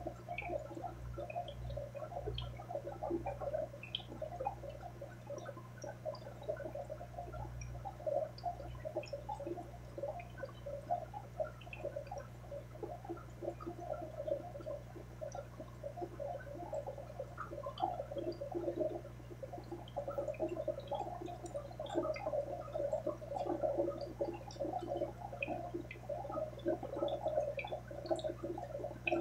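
Aquarium water bubbling and gurgling continuously, a dense stream of small pops over a steady low hum.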